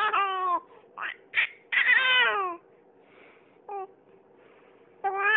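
A baby's high-pitched cries in a string of bursts: a few short ones and a longer cry about two seconds in that falls in pitch at its end.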